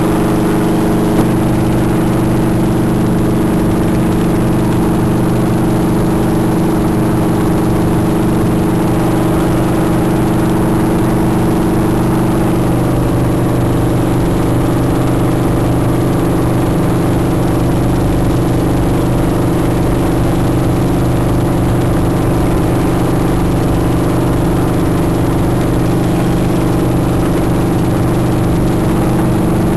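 Piston-engined helicopter in cruise flight, heard from inside the cabin: a loud, steady drone of engine and rotor, its tone shifting slightly about twelve seconds in.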